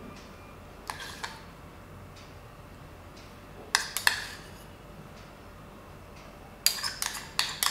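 Metal spoon clinking against glass jars and the cream bowl as chocolate cream is spooned in: a couple of light taps about a second in, two sharper clinks near four seconds, then a quick run of clinks near the end.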